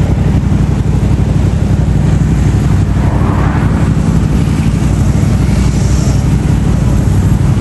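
A stream of motorcycles and scooters riding past one after another, their engines making a steady, loud mix with a car among them.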